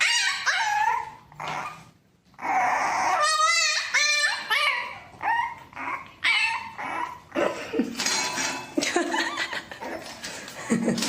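A dog whining and yipping in a series of high calls that bend up and down, one of them warbling about three seconds in.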